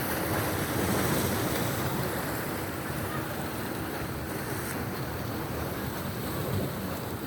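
Red Sea waves washing in steadily, swelling slightly about a second in, with wind buffeting the microphone.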